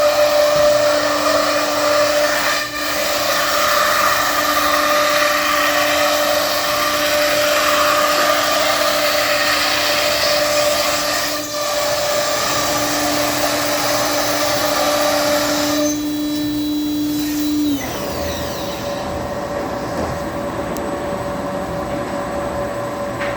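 Thermwood CS-45 CNC router running, a steady whine over a dense rushing noise. The whine cuts off sharply near the end, leaving a quieter steady hum.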